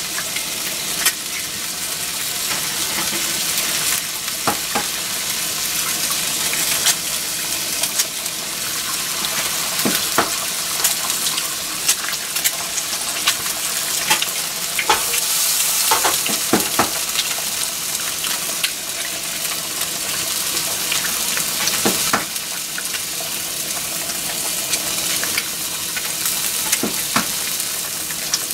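Eggs frying in hot oil in a nonstick frying pan: a steady sizzling hiss with frequent sharp pops and crackles of spitting oil, as more eggs are cracked into the pan.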